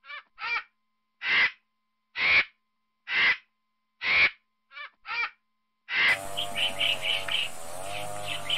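Harsh, rasping bird calls, about one a second, some in quick pairs, each short and separated by silence. About six seconds in, a different recording cuts in: quick high calls in short runs over steady background noise.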